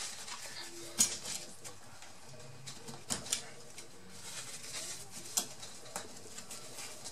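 Paper tissue rubbing and crinkling against a laptop's copper heatsink as old thermal paste is wiped off, with several sharp handling clicks, the loudest about a second in.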